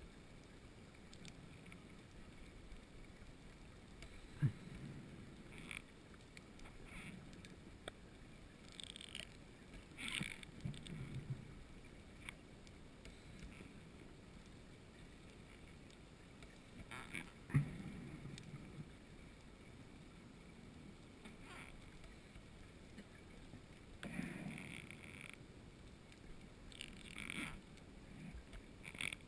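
Underwater sound of a scuba diver breathing through a regulator: a low steady hiss broken every several seconds by an inhalation hiss and exhaled bubbles, with a couple of sharp knocks.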